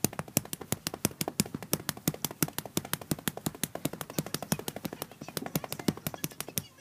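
Rapid, steady clicking, about seven sharp clicks a second, that stops suddenly near the end: repeated clicks or taps to get a paused video playing again.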